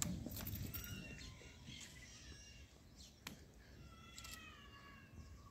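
Faint bird calls in a quiet outdoor hush: a few short chirps, then a longer wavering call near the end.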